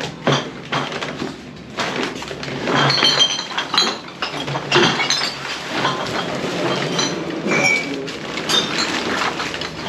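Glass bottles and other stored clutter clinking and knocking irregularly as they are shifted and lifted by hand, some clinks with a brief ring.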